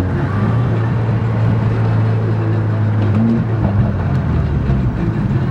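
Car engine running steadily with road noise while driving, its low note rising briefly about three seconds in.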